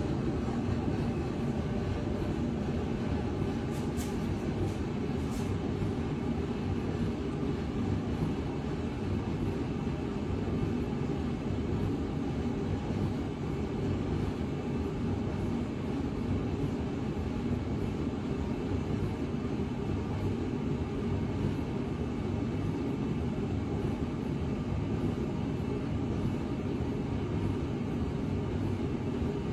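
A machine running steadily under test, a continuous low rumble with no change in pitch or level.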